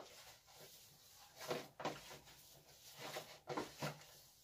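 Hands kneading a minced-meat köfte mixture in a plastic basin: about five short, faint sounds as the meat is pressed and worked.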